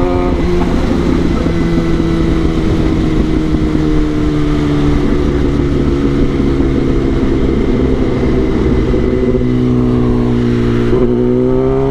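Kawasaki ZX-10R's inline-four engine running at steady, moderate revs while riding, its pitch easing slowly down and then rising again near the end as the throttle opens.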